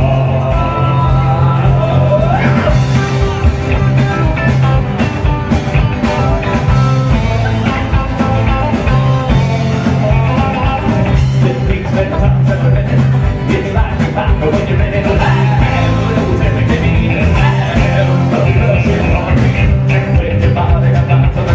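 Live rock band playing an instrumental stretch of a song: a steady, loud bass line under drums and electric guitar.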